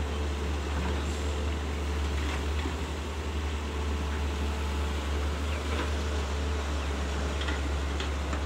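Excavator diesel engines running steadily under digging work: a low, even drone with a few faint ticks in the second half.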